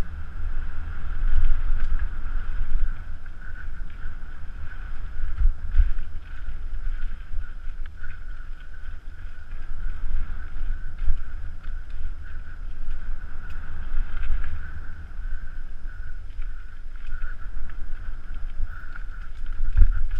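Wind buffeting a helmet-mounted camera while riding a bike fast down a rough dirt trail, with irregular low thumps and a few knocks from bumps and roots, and a steady high hum.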